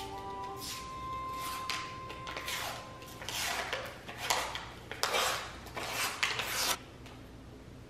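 Paper label being peeled and torn off a tube of refrigerated crescent roll dough: a series of dry ripping rasps, coming closer together and louder from about three seconds in and stopping about seven seconds in.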